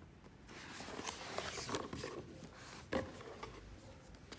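An intercom kit's box and packaging being opened and handled: rustling and scraping, with two sharp knocks.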